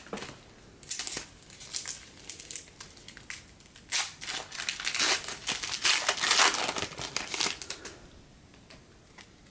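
Foil wrapper of a baseball card pack crinkling and crackling in the hands as it is opened, in a run of sharp, irregular crinkles that is busiest in the middle and dies away near the end.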